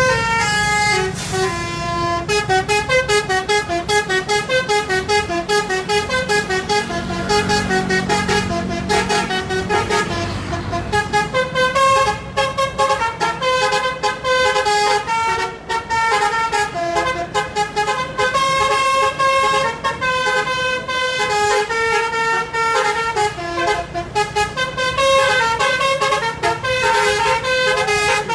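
Telolet horn on an Indonesian tour bus: a set of multi-tone horns playing a fast melody, note after note several times a second, without stopping.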